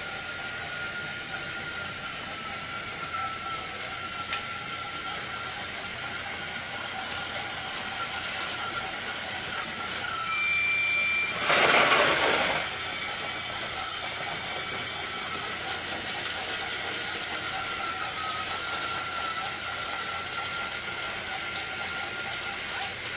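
Small motor running with a steady, slightly wavering whine. About ten seconds in comes a short high whistle tone, and right after it a loud hiss lasting about a second.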